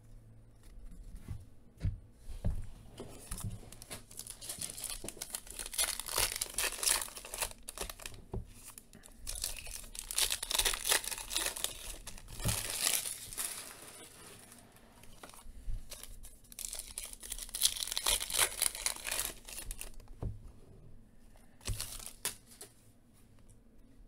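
Foil trading-card pack wrappers being torn open and crumpled by hand, in three main spells of crinkling and tearing.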